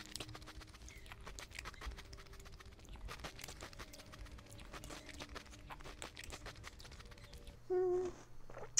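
Close-up crunching of Cap'n Crunch cereal being chewed: rapid, irregular crackles and snaps. The cereal is still crunchy in milk. A short hum of the voice comes near the end.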